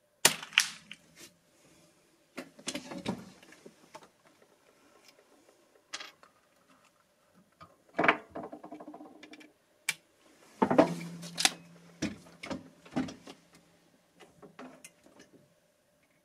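An irregular series of sharp mechanical clicks and clacks of a .22 rifle being handled, the loudest about a quarter second, eight seconds and eleven seconds in.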